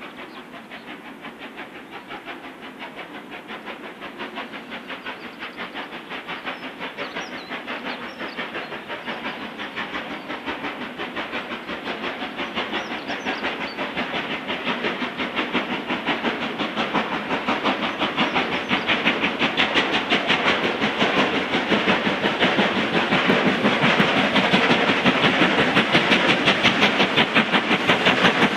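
Steam locomotive working hard as it hauls a passenger train, its regular chuffing exhaust beats growing steadily louder as it approaches.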